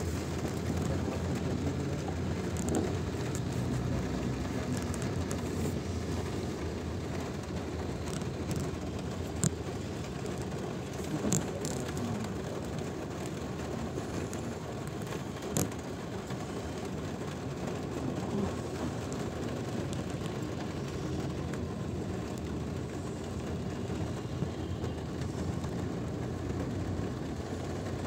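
Steady road noise inside a car driving in the rain, with a few sharp clicks.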